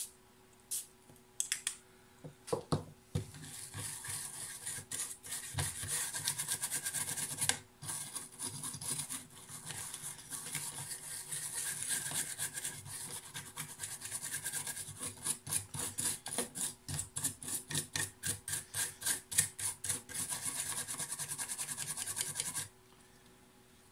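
A couple of short spray bursts from an aerosol can, then the plastic casing of a small portable radio-speaker being rubbed clean with quick back-and-forth strokes, several a second. The rubbing stops abruptly about a second before the end.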